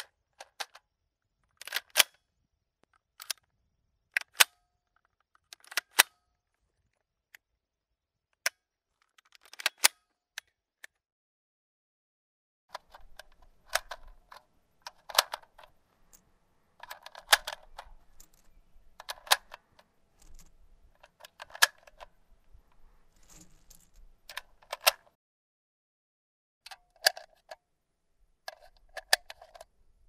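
Gun reloading sound effects: a series of sharp metallic clicks and clacks of a gun's action being worked. They come singly, a second or two apart, at first, then in busier clusters with rattling, sliding handling noise, then single clicks again near the end.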